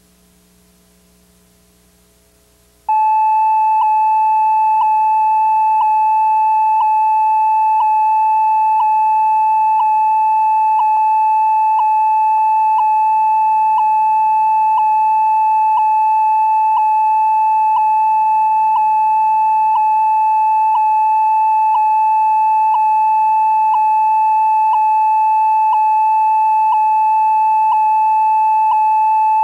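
Faint hum, then about three seconds in a steady electronic test tone from the VHS tape's end-of-tape 'white screen of death' starts abruptly and holds unchanged, with a faint tick about once a second.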